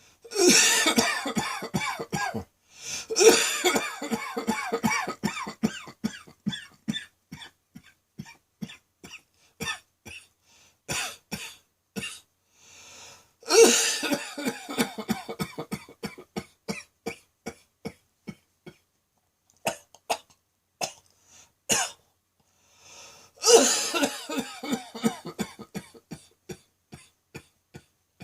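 A person's prolonged coughing fit: loud bouts, each opening with a hard cough and trailing off into a long run of rapid, shorter coughs, with quick in-breaths before the bouts at about 13 and 23 seconds. The cougher says it sounds like a sixty-a-day smoker's cough.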